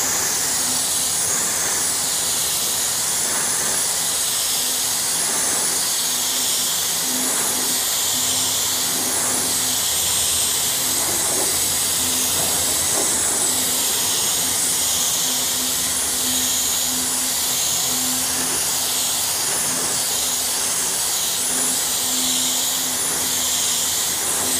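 3M Accuspray HVLP spray gun hissing steadily as it sprays a coat of primer, the air set low at about 20 PSI.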